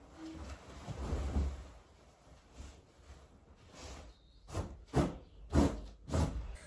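Duvet and bedding rustling as a bed is made and the cover is spread and smoothed. Past the middle come four short thumps about half a second apart.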